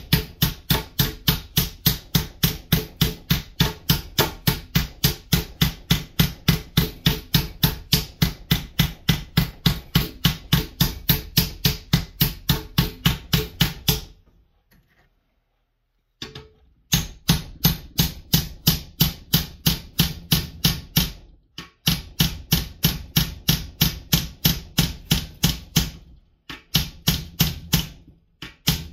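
Ball-peen hammer peening over rivets on a metal tractor final-drive backer plate, in steady metallic blows of about three to four a second. The hammering stops for a couple of seconds about halfway through, then goes on with a few short breaks.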